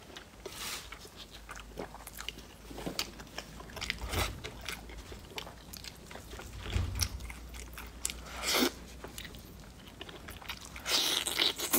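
Close-miked eating sounds: biting into and chewing braised pork belly, with scattered wet smacks and clicks. The loudest bites come about eight and a half seconds in and again near the end.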